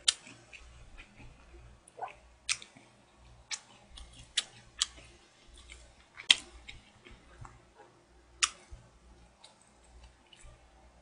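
Close-up eating sounds: a person chewing rice, with scattered sharp clicks and smacks at irregular intervals.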